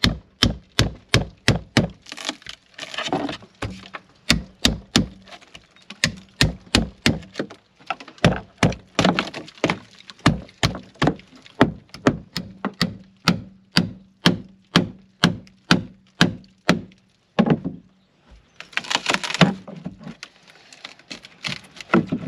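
Hammer blows on a punch in a steady run, about two to three strikes a second, knocking copper nails out of a wooden boat's frames. The hammering stops for a moment near the end, when a brief rasping noise is heard.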